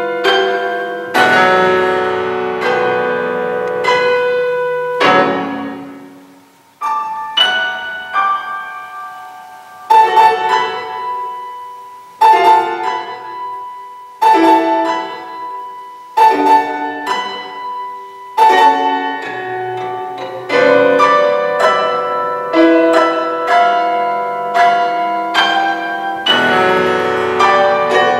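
Grand piano prepared with screws, bolts, rubber and nuts between its strings, played as a solo: struck notes with percussive, gamelan-like tones that ring and decay. After a short pause, single accented strikes come about every two seconds, then the playing thickens into denser chords near the end.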